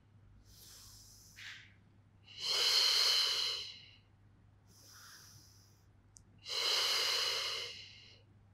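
A woman's breathing: two long, forceful exhales through the mouth about four seconds apart, with fainter inhales between them, timed to the exhale on each lift of a Pilates side-lying leg lift.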